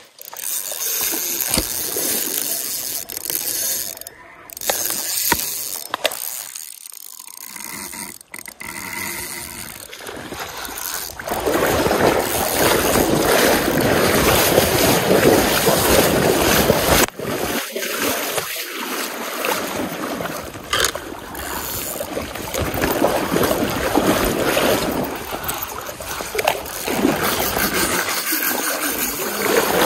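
Stream water splashing and sloshing close to the microphone as someone wades and reaches into the current, irregular throughout and louder and denser for several seconds in the middle.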